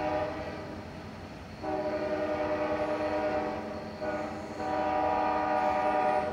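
Diesel locomotive air horn blowing for a grade crossing: a blast fades out just after the start, a long blast follows from about a second and a half in, then a short one about four seconds in and another long one near the end. A steady low rumble runs underneath.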